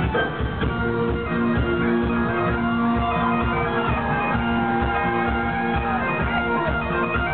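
Celtic rock band playing live through a concert PA: guitar over a steady drum beat, with long held notes and a melody line above.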